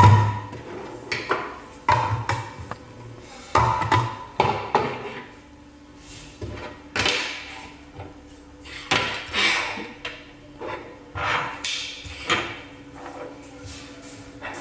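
Parts of a manual meat grinder being handled and set down: irregular knocks, clacks and short scrapes, a second or so apart.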